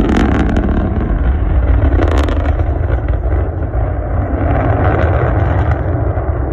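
Loud, deep rocket rumble from Starship SN9, starting abruptly just before and holding steady, with a few sharp crackles near the start and about two seconds in.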